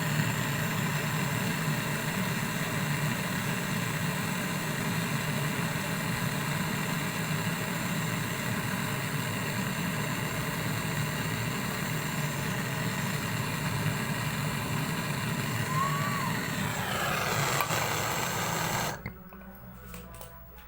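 Refrigeration vacuum pump running steadily, then switched off, its whine falling in pitch as it winds down and stopping shortly before the end.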